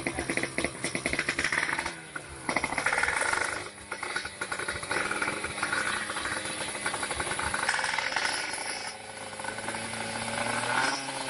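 Yamaha RXZ drag bike's two-stroke single-cylinder engine revved hard at the start line. The revs drop twice, about two and four seconds in, and climb again.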